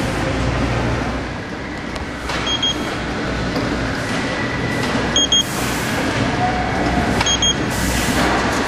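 Steady running noise of warehouse roller conveyors and automated storage-lift machinery. Short electronic double beeps sound three times, a couple of seconds apart.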